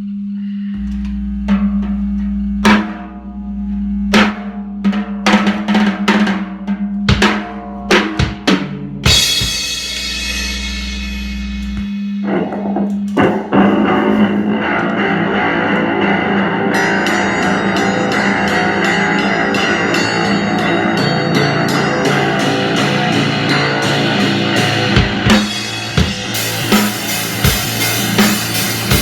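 Live noise-punk band starting a song: scattered drum and cymbal hits over a steady hum and low drone, then a wash of noise builds from about nine seconds in. Fast, even cymbal beats come in around seventeen seconds, and the full band plays loud near the end.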